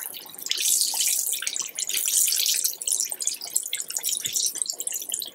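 Hot oil sizzling around two puff-pastry apple hand pies frying in a saucepan, a dense crackling hiss that swells about half a second in and dips briefly around three seconds.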